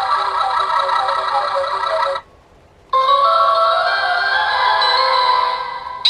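Two short electronic musical jingles from a toy magician sound-effect machine, one after the other with a brief pause between. The second has a slowly rising tone.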